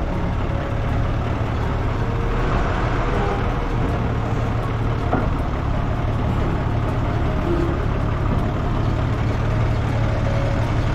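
TCM forklift's engine running steadily at low revs as the forklift creeps forward and slides its forks under a load on a truck bed, with one light click about five seconds in.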